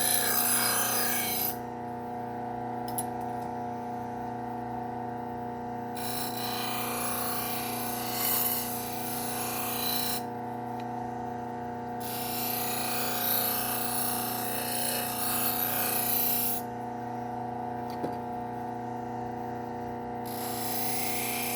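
Bucktool low-speed sander motor running with a steady hum while a kitchen knife edge is stropped on its leather wheel charged with compound. The hiss of the blade on the wheel comes and goes in passes of a few seconds, with gaps where the blade is lifted off.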